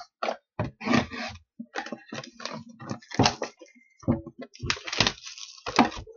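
Plastic shrink-wrap being cut and torn off a sealed trading-card box: a run of irregular crinkles and rips, with the box being handled.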